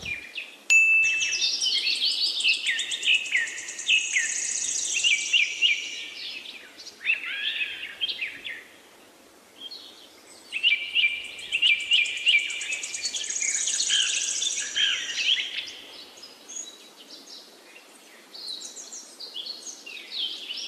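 Birds chirping and singing: many short overlapping calls, trills and rising and falling whistles, with a quieter lull about nine seconds in.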